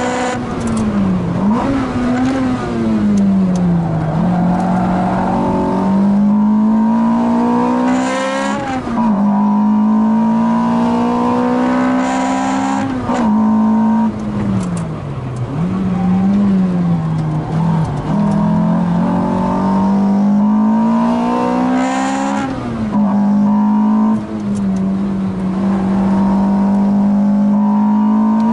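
Car engine running hard through a fast lap of a racing circuit, its note held high and slowly climbing. It drops sharply and picks back up several times, around 1, 4, 9, 15 and 24 seconds in.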